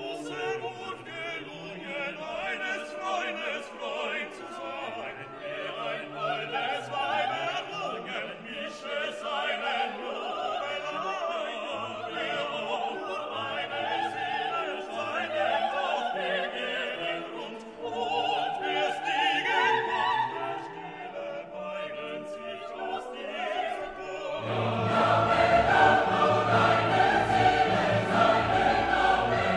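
Classical orchestral music with a choir singing, in an operatic style. It swells louder and fuller near the end.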